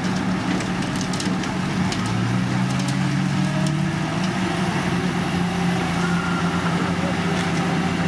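Heavy diesel construction machinery running steadily, with a second engine coming in about two seconds in and rising slightly in pitch. Scattered sharp cracks and clicks sound over the engines.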